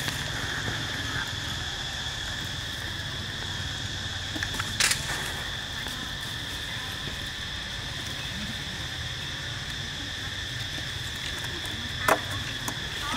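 Steady insect chorus, a continuous high shrill with a second, lower band beneath it. Two short sharp clicks cut through it, about five seconds in and again near the end.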